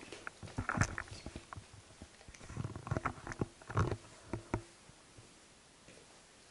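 Footsteps on a wooden floor: irregular soft knocks and shuffles, bunched around a second in and again between about two and a half and four and a half seconds in.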